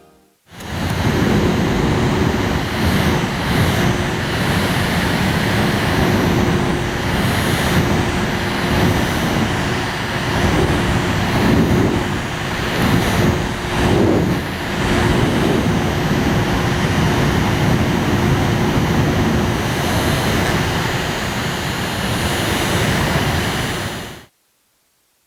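A small electric fan or blower running steadily: rushing air with a constant motor hum, swelling slightly now and then, cut off abruptly near the end.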